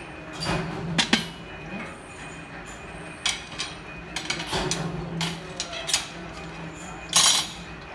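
Steel flat bars of a cross-arm frame clanking and clinking against a coil of steel strip as they are set on it by hand: a series of separate metal knocks, the loudest a longer clash near the end, over a steady low hum.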